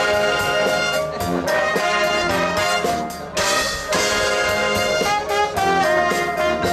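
High school marching band playing its field show: trumpets and trombones carry a melody over marching percussion, with a short break about halfway through.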